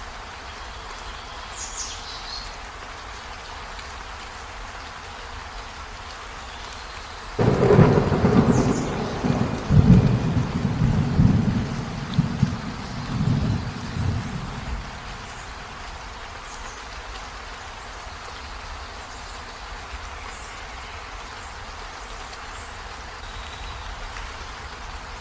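Steady rainfall with a thunderclap breaking sharply about seven seconds in, then rolling and rumbling in several surges for about seven seconds before fading back under the rain.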